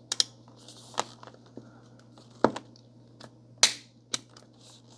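Plastic hair dryer being handled: a string of irregular sharp clicks and taps, with a short scraping rustle about three and a half seconds in.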